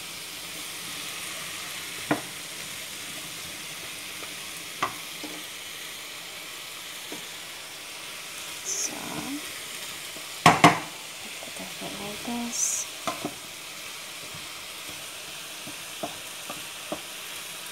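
Mixed vegetables sizzling steadily in oil in a frying pan while a wooden spatula stirs them, scraping and knocking against the pan now and then, loudest about ten seconds in.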